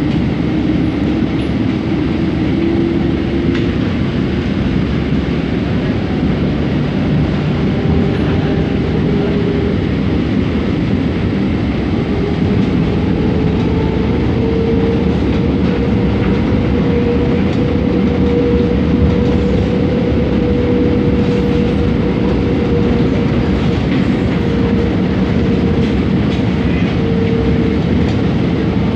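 Running noise of a Scomi/MTrans KL Monorail train heard inside the passenger car: a steady rumble of rubber tyres on the concrete guideway, with a drive whine that rises in pitch over the first half and then holds steady.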